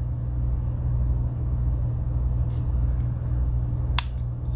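A single sharp metallic click about four seconds in, a Victorinox 91 mm Swiss Army knife tool snapping into place against its backspring, over a steady low hum.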